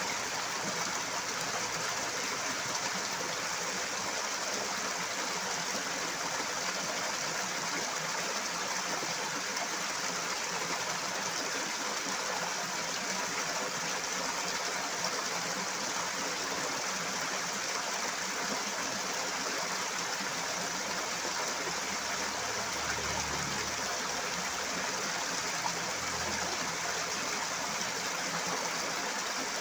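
Flowing water rushing steadily, a loud, even, unbroken hiss.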